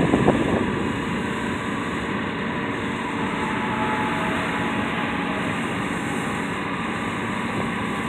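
John Deere S670 combine harvester running steadily while harvesting wheat: a steady drone of engine and threshing machinery with a faint whine.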